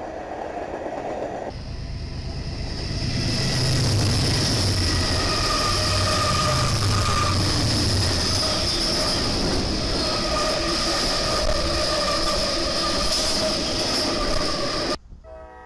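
Freight cars rolling past, then diesel freight locomotives passing close by with a loud low engine rumble and a steady high-pitched wheel squeal. Near the end the sound cuts suddenly to a quieter scene where a train horn begins.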